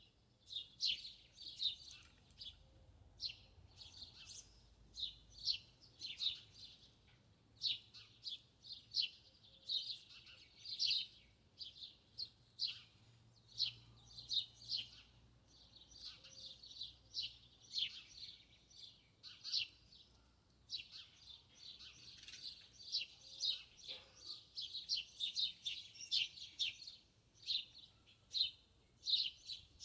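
Small birds chirping, with many short, quick chirps overlapping in a steady chatter throughout.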